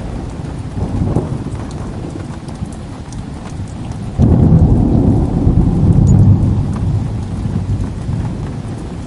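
Steady rain with thunder. A loud low roll of thunder breaks in suddenly about four seconds in and fades away over the following seconds.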